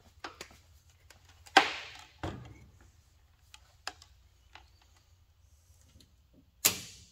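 Handling noise as a digital multimeter is set down on a wooden test board and its test leads are handled: a few sharp clicks and knocks, the two loudest about a second and a half in and near the end.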